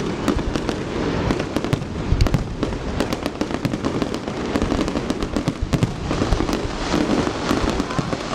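Fireworks going off in rapid succession: a dense run of sharp bangs and crackles over a constant low rumble of bursts.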